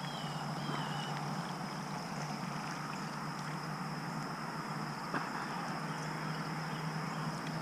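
Steady rush of flowing creek water, with a short warbling bird call near the start and a single sharp click about five seconds in.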